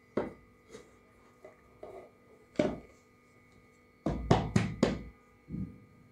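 A plate and an aluminium cake tin knocking together as the plate is laid over the tin and the two are turned over to unmould a cake: a few scattered knocks, then a quick run of four louder knocks about four seconds in, and one more near the end.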